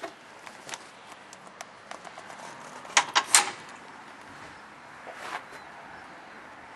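Scattered clicks and knocks of parts of a Husqvarna zero-turn mower being handled, with a louder clatter of several sharp knocks about three seconds in; the engine is not running.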